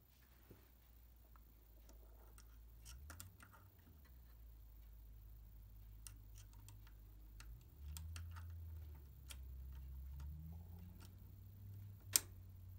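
Small metal clicks and taps from handling a bobbin case and fitting it into the rotary hook of a Typical GC6880MD3Y industrial sewing machine, with one sharp, louder click near the end as the case snaps into place.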